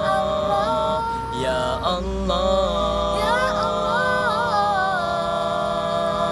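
Boys singing a cappella: long held notes with wavering, ornamented turns in the melody, one note held near the end.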